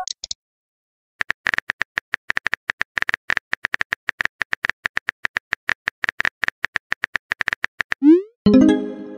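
Text-messaging app sound effects: a rapid run of short, high keyboard-tap clicks, several a second, as a message is typed. Near the end there is a quick rising swoosh followed by a ringing chime as the message is sent.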